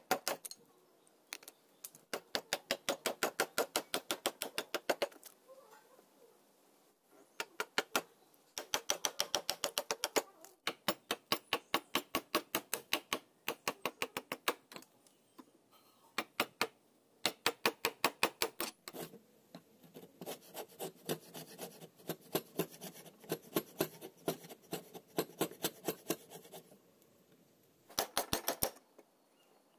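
A bare hacksaw blade held by hand sawing into a block of wood in quick back-and-forth strokes, about four or five a second. The strokes come in runs of a few seconds with short pauses between.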